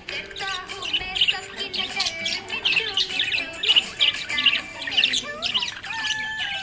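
Budgerigar chirping: quick short chirps, about three a second, over a wavering warble that glides up and down in pitch.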